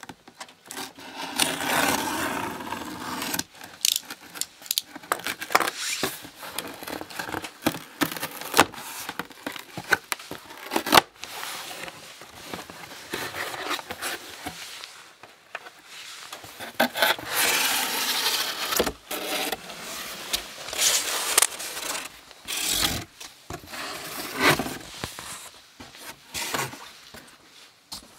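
Utility knife slitting the packing tape on a cardboard shipping box, then the cardboard flaps being pulled open and a wrapped package slid out: irregular scraping and rubbing of cardboard with scattered sharp clicks.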